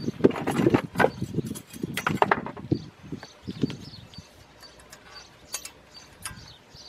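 Loud handling noise with knocks for about the first three seconds, then light scattered metallic clicks and taps as a front brake pad is set into the caliper bracket's anti-rattle clips.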